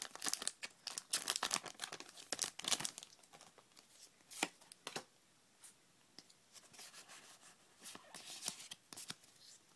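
Foil wrapper of a Pokémon trading-card booster pack crinkling and being torn open. The crackling is dense for about the first three seconds, then thins to scattered crackles and clicks as the cards are handled.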